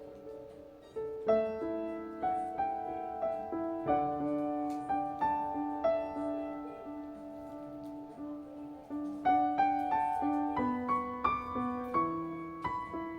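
Background music: a gentle piano melody of struck notes that ring and fade, played at a slow, even pace.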